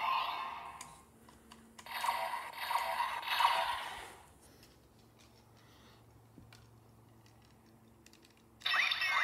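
Ultraman Trigger GUTS Sparklence toy playing tinny electronic sound effects through its small speaker as it lights up. The sound comes in stretches: at the start, from about two to four seconds in, and again just before the end. In the quiet between there are light plastic clicks of handling and button presses.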